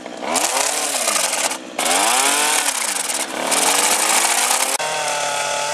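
Brushcutter with a Universal reverser cutting head chewing through dry brush and small branches. The engine speed rises and falls as the head bites in, and the sound breaks off briefly a few times. Near the end the engine settles into a steady high-speed run.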